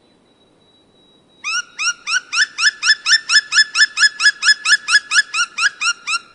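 An animal calling a rapid series of about twenty short, rising notes, about four a second, starting abruptly about a second and a half in. A faint, steady high whine runs underneath.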